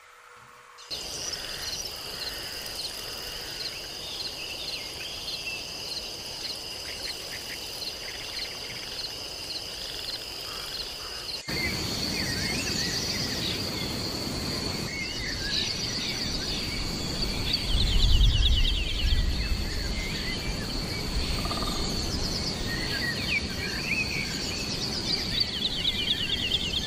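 Outdoor nature ambience: a steady high insect trill with a few faint bird chirps. About eleven seconds in it changes abruptly to many small songbirds chirping over a high trill, with a brief low rumble about seven seconds later.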